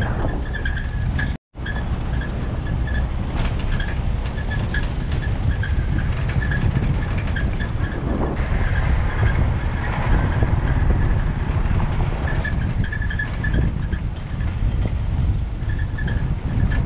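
Car driving on a dirt road: a steady low rumble of engine, tyres and wind, which cuts out for a split second about a second and a half in.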